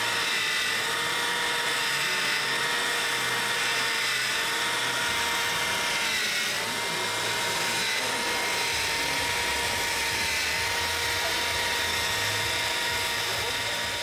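Steady high-pitched motor whine of a radio-controlled John Deere self-propelled forage harvester model running as it picks up grass, its pitch dipping briefly a few times.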